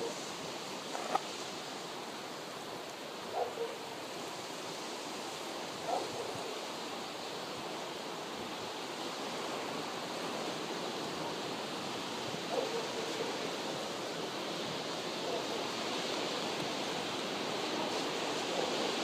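Steady rush of ocean surf and wind, with a few short, faint mouth sounds from chewing and swishing a mouthful of green juice.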